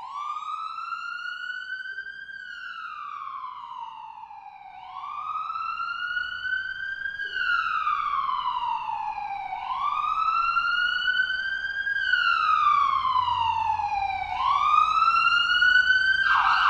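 Wailing emergency siren, its pitch rising for about two and a half seconds and falling for about two and a half, over and over, growing louder toward the end.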